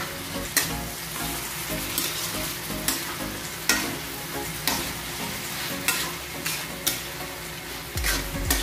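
Diced pork and tomato sizzling as they fry in a wok, while a metal spatula stirs and scrapes against the pan about once a second.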